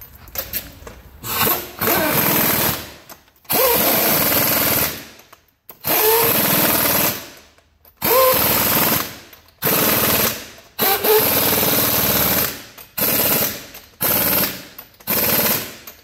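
Impact wrench run in about nine short bursts, each a second or so, spinning up with a brief rising whine and then hammering, as it tightens the lug nuts on a Jeep alloy wheel.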